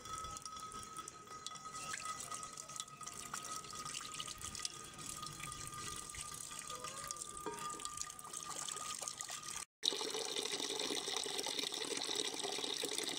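A thin stream of running water pours and splashes into a glazed clay dish as the dish is rinsed and fills. The sound drops out for a moment about ten seconds in, then returns louder, with more splashing.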